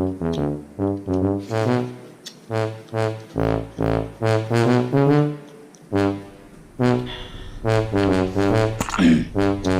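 Background music led by a brass instrument playing a run of short, separate notes.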